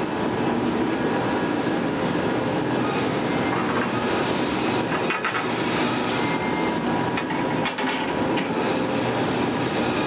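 Steady, loud industrial noise of a steelworks ladle furnace bay, the furnace and plant running without a break, with a few faint clicks in the second half.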